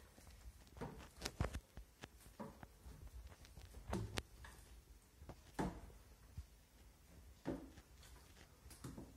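High-heeled shoes with clear plastic heels knocking on wooden stair treads: irregular footsteps a second or more apart, some coming in quick pairs.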